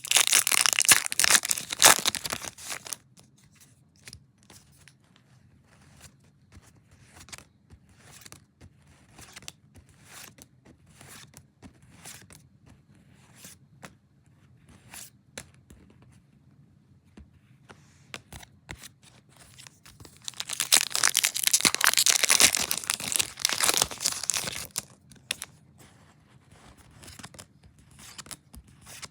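Foil booster pack wrappers torn open: a loud crinkling tear for about three seconds at the start, and again about twenty seconds in. Light clicks and rustles of trading cards being handled come in between.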